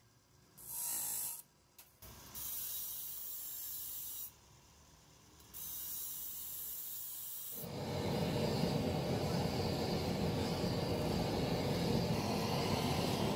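Abrasive grinding wheel cutting into a coiled steel spring, a hissing grind in three bursts of one to two seconds with pauses between. From about eight seconds in, a louder steady rushing noise takes over.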